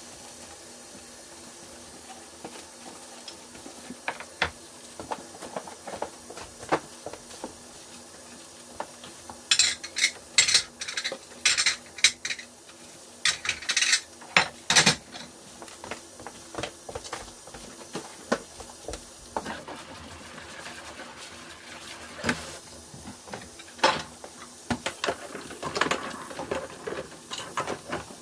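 Dishes and cutlery clinking and clattering as they are handled, with a run of louder clatters in the middle, over a steady low hum.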